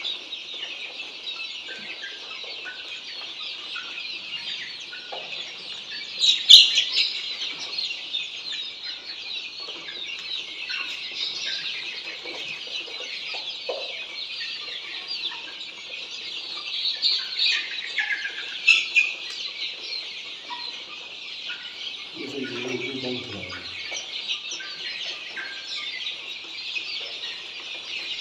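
A large flock of Australorp chicks peeping all together in a dense, continuous high chorus of cheeps, with a few louder cheeps standing out. About three-quarters of the way through comes a brief, lower-pitched sound that falls in pitch.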